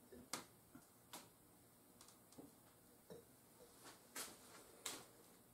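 Near silence broken by a handful of faint, sharp clicks and ticks at irregular intervals.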